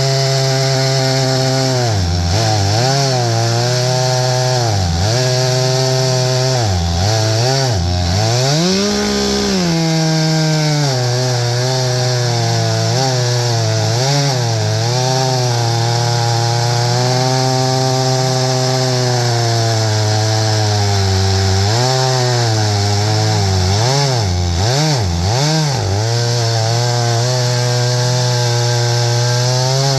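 Stihl MS661 two-stroke chainsaw with a 36-inch bar and full chisel chain, ripping a pine log lengthwise in an Alaskan mill. The engine runs loud under load, its pitch sagging and recovering several times as the cut bogs it, and climbing near the end.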